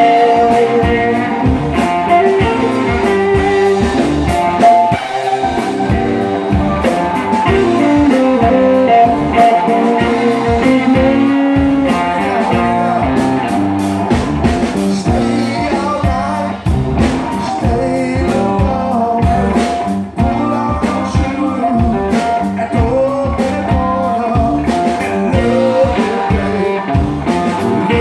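Live blues-rock band playing loud: two electric guitars, an electric bass and a drum kit.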